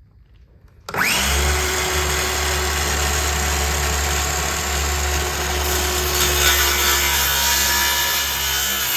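Power tool cutting into wood: the motor starts about a second in with a short rising whine and then runs steadily under load.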